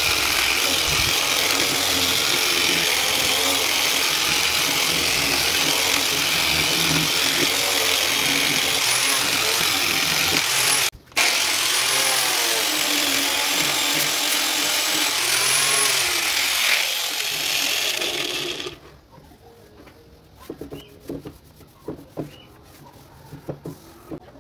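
Corded power sander with a round sanding disc running against a wooden board: a steady abrasive whir whose motor pitch wavers as the disc is pressed on and moved. It drops out for a moment about halfway through and stops about three-quarters of the way in, leaving light taps as the board is handled.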